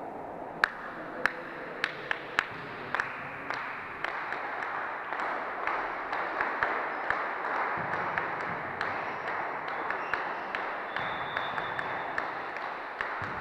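Volleyball play in a sports hall: five sharp, echoing slaps of the ball in the first three seconds, then many lighter taps and claps over a steady hall hubbub. A brief high tone sounds near the end.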